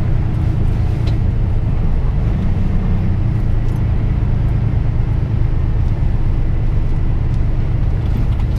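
Steady low drone of a moving vehicle's engine and tyre noise, heard from inside the cab.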